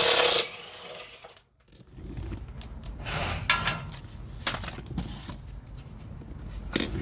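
A power tool running stops just after the start. It is followed by scattered metallic clinks and light knocks of tools and bolts being handled while the rear engine mount bolts are undone, one clink ringing briefly about three and a half seconds in.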